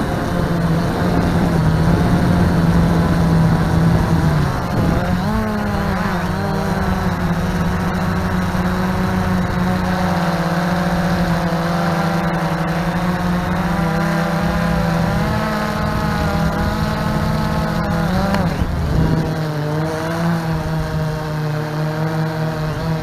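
Multirotor drone's propellers humming steadily. The pitch rises about five seconds in, holds, and drops again near the end as the motors change speed.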